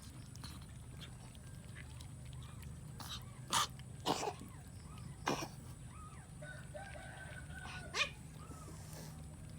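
Four short, sharp animal calls over a steady low hum, with a few faint short chirps between them.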